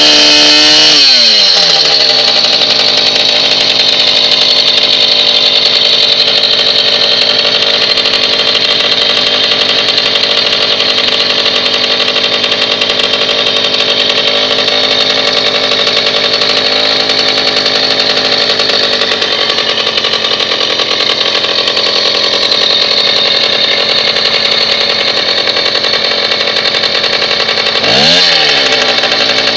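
A small single-cylinder moped engine runs at high revs, about 9,000 rpm on a laser tachometer. About a second in the revs fall away, and it settles to a steady lower speed of around 2,800 rpm. Near the end there is one short blip of revs.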